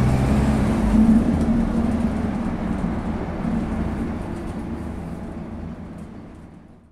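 Dennis Dart single-deck bus running, heard from inside the passenger saloon as a steady engine and drivetrain drone. It fades away to nothing near the end.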